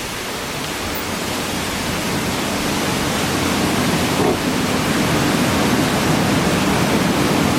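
Water rushing onto the sawmill's water wheel as the gate is opened: a steady rushing noise that grows slowly louder.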